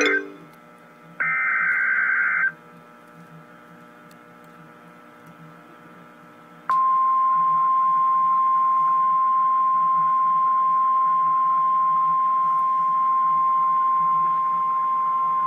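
NOAA Weather Radio emergency alert: the tail of one SAME digital header burst, then another harsh warbling data burst about a second in lasting about a second and a half, then a few seconds of radio hiss. About seven seconds in, the single steady 1050 Hz warning alarm tone begins and holds, signalling the severe thunderstorm watch that follows.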